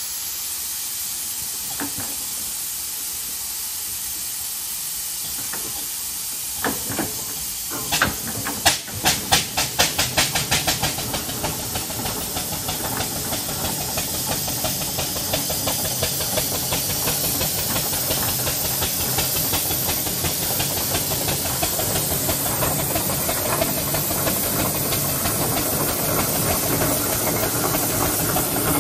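Fowler steam roller with a steady hiss of steam. About seven seconds in the exhaust beats start: sharp chuffs that quicken over a few seconds as the roller gets under way, then merge into its steady running, growing louder as it draws near.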